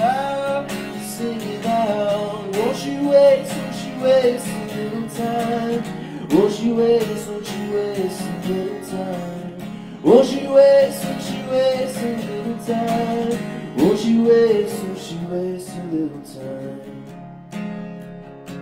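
A man singing a melody over a strummed acoustic guitar, his voice sliding up into each phrase. Near the end the voice drops away and the guitar carries on alone.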